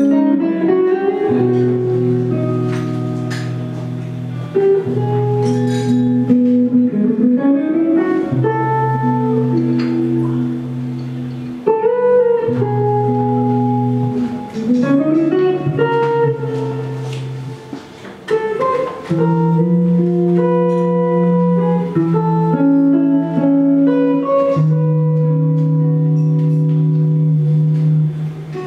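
Guitar music, a plucked melody over long held bass notes, with several upward slides in pitch.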